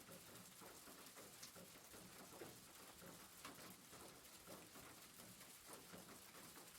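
Rain pattering faintly and steadily on a roof, with scattered individual drops striking.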